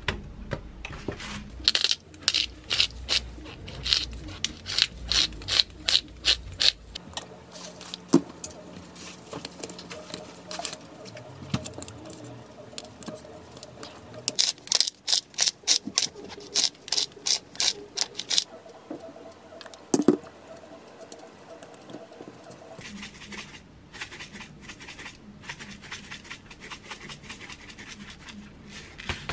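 Spice jars shaken over raw beef slices: three bursts of quick rattling clicks at about four a second, with a few single knocks of meat and jars on a metal tray in between.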